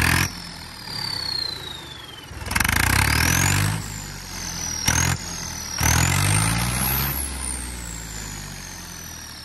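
Turbocharged tractor diesel engine revved in three short blips. With each rev the turbocharger's high whistle rises in pitch, then slides slowly down as the turbo spools down after the throttle closes. This is the turbo's 'back whistle', the sound being tested.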